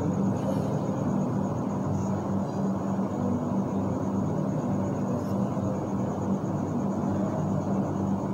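A steady low hum with an even noise over it, unchanging throughout: constant room or electrical background noise.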